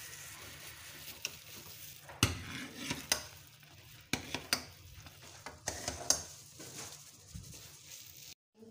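Metal ladle stirring hot, frothy milk in an aluminium saucepan, knocking and scraping against the pan several times over a steady sizzling hiss from the hot pan. The sound cuts off abruptly near the end.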